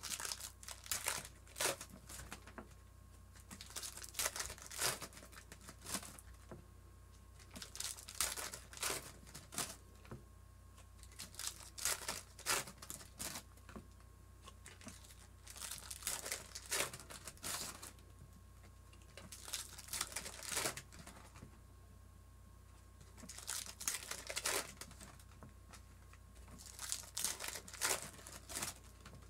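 Plastic trading-card pack wrappers crinkling and tearing in the hands as packs are opened, in bursts every few seconds.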